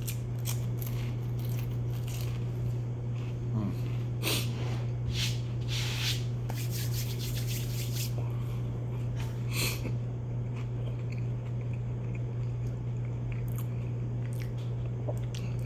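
Chewing and crunching of a cracker with cheese, close to the microphone, in short crackly bites that thin out after about ten seconds, over a steady low hum.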